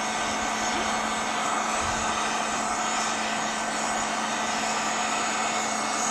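Battery-powered blower fan running steadily with a constant low hum, forcing air through a pipe into the burning charcoal of a pit forge to bring it up to forging heat.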